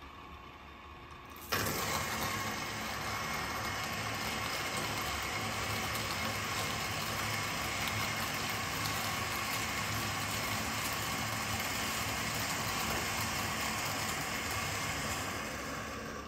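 Electric burr coffee grinder running: it starts abruptly about a second and a half in, grinds with a steady motor whir, and winds down near the end.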